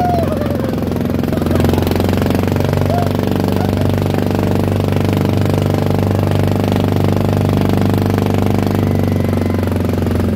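Engine of a motorized outrigger boat (bangka) running steadily under way, with a fast, even beat.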